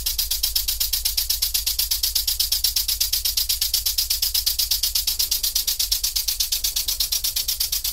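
Miniature V-twin oscillating-cylinder model engine running fast on compressed air: a rapid, steady chuffing of exhaust-air puffs, about ten a second. The two cylinders give a double beat, the second pulsing about halfway through the first's stroke, like a real V engine.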